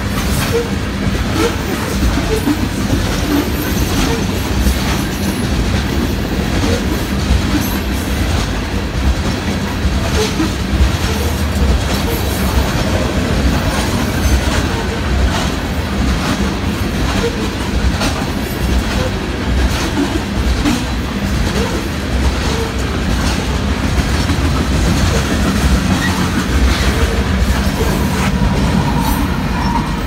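Empty coal hopper cars rolling past at a grade crossing, their wheels clacking steadily over the rail joints above a continuous low rumble. Near the end the train's distributed-power locomotive comes alongside and its engine joins in, a little louder.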